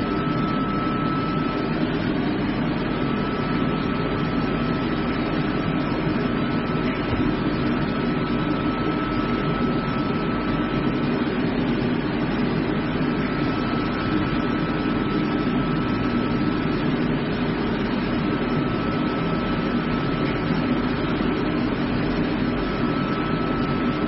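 Water at a rolling boil in a large stainless steel blanching kettle: a steady, low rushing roar, with a faint thin whine that comes and goes.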